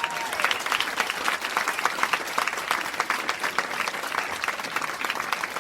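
Audience applause: a dense, steady patter of many hands clapping.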